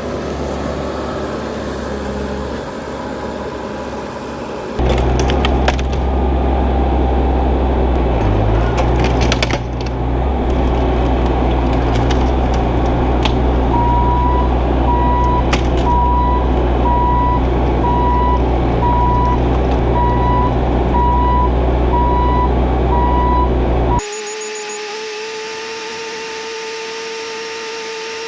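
Heavy demolition machinery running steadily while wood cracks and splinters as a mobile home is torn apart. A backup alarm beeps about once a second through the middle part.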